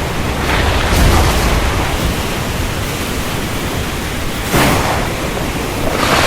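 Thunderstorm: a steady hiss of rain and wind, with a low rumble of thunder about a second in and brief louder gusts near the end.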